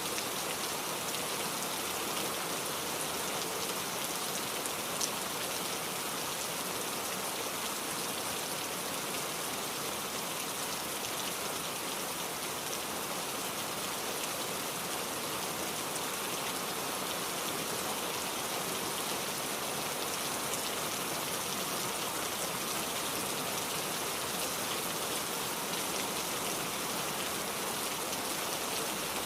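Steady heavy rain falling, a dense even hiss with many fine drop ticks.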